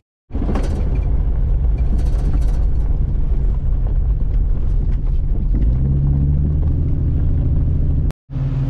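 A 2000 Jeep Cherokee XJ driving on a gravel road, heard from inside the cabin: a steady engine rumble with tyre and road noise, and some light clatter in the first two seconds. The engine note strengthens briefly about six seconds in.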